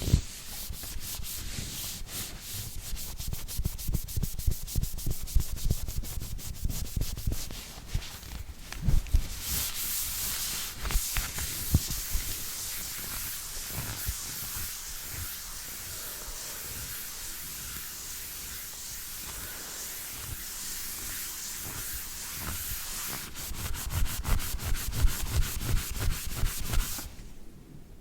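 Close-miked brush rubbing, scrubbing a device's surface in quick scratchy strokes. Around a third of the way in it settles into a steadier, smoother hiss, and quick strokes return near the end.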